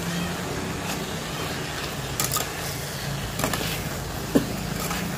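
Induction cooker humming steadily under a hiss from the pan of frying vegetables, with tongs knocking and scraping against the stainless pan a few times, the sharpest knock near the end.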